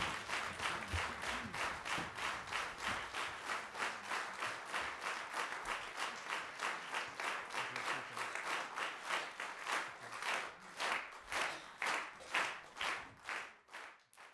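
Concert audience clapping in unison, a steady rhythmic applause that thins out and dies away near the end.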